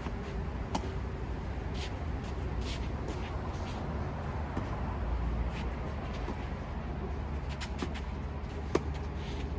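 Tennis ball being struck and bouncing during play: a few sharp knocks spread across the stretch, the loudest near the end, over a steady low rumble.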